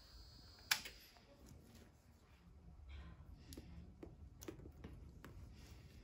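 Faint clicks and small knocks of wires and plastic multi-pin connectors being handled. There is one sharp click about a second in, where a faint high steady whine stops, then lighter scattered clicks.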